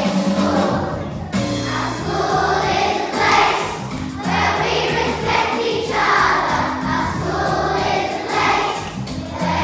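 A group of voices singing a song together, choir-style, with held notes changing about every second.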